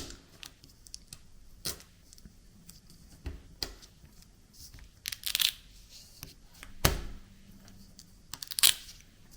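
Washi tape being pulled off the roll and torn against a 3D-printed plastic cutter: several short ripping rasps with small clicks, and a single dull knock on the desk a little before the end.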